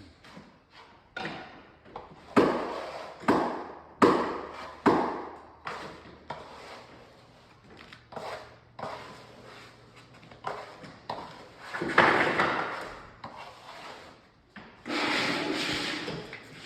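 A series of sharp wooden knocks and clatter from timber floorboards being handled and knocked into place during floor laying. The knocks are loudest in the first five seconds, each ringing briefly. A steadier rubbing noise comes in near the end.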